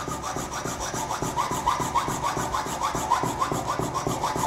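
Hand file rasping back and forth across a metal reed valve body, cutting half-moon recesses so the inlet manifold bolts clear it. The strokes are quick and even.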